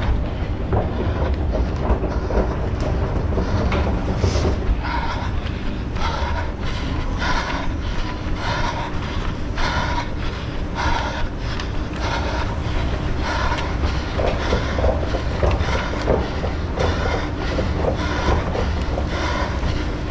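A runner's strides and hard breathing, picked up by a head-mounted camera, pulse regularly about every two-thirds of a second over a steady low rumble of motion noise.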